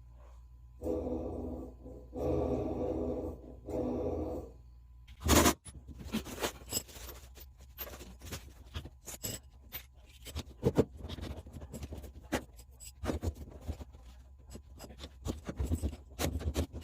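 Whirlpool top-load washing machine making a grinding noise in repeated bursts about a second long. About five seconds in there is one loud knock, followed by irregular clicking and knocking.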